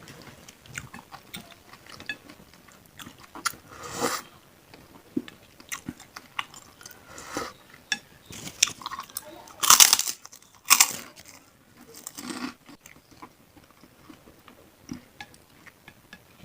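Close-miked chewing and biting of bakso meatballs and tetelan beef trimmings: a run of small wet mouth clicks broken by a few louder, sharper bites and chews, the loudest about ten seconds in.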